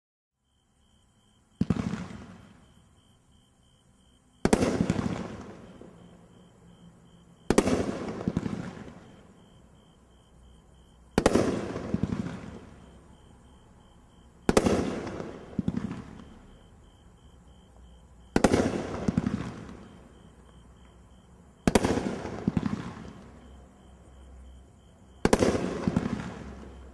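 Brothers Solar Style 12-shot 500 g firework cake firing single shots: eight sharp bangs about every three to four seconds. Each is followed within about a second by a second, smaller bang, the shell lifting and then bursting in the air, before fading out.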